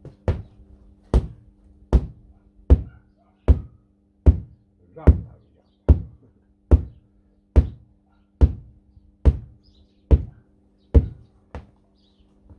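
Sledgehammer blows, about fifteen heavy strikes evenly spaced a little over one a second, beating down on a rear tractor tyre where it meets the steel rim to break the bead loose so the tyre can come off.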